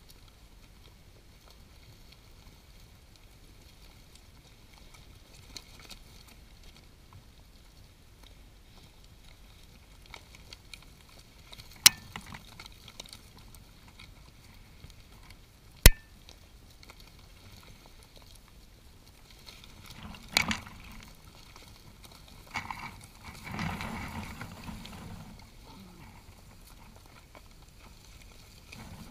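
Griffon vultures at a carcass close to the microphone: mostly faint, with two sharp knocks near the middle and a few seconds of scuffling and rustling later on.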